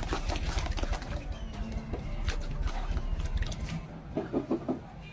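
Sand-cement chunks crunching and crumbling as they are crushed, a dense run of dry, irregular cracks and crackles.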